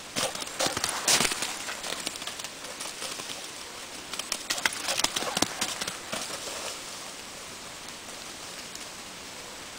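A vizsla's paws pounding and crunching through dry leaf litter as she runs, in two flurries of quick footfalls, the second starting about four seconds in, over a steady hiss.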